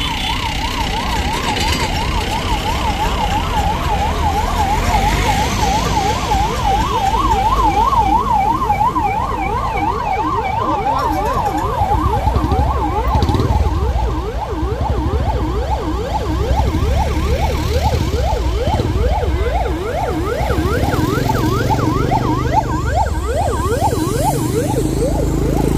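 Police vehicle sirens wailing in a fast warble, pitch swinging rapidly up and down; about halfway through, a second siren with quick repeated rising sweeps joins and then carries on alone. Vehicle engines and traffic rumble underneath.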